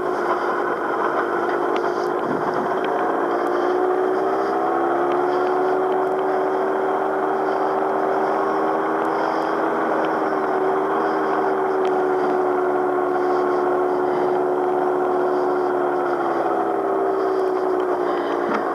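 Gyrocopter's engine running steadily, its pitch rising slightly a few seconds in, holding, then easing back near the end.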